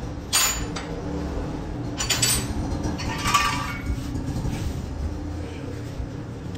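Steel hand tools clinking and clanking against metal: several sharp clinks in the first four seconds, one ringing briefly, over a steady low hum.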